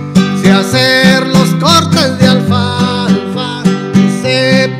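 Instrumental passage of a Mexican folk song: acoustic guitar strumming chords over a bass line, with a bending lead melody above it.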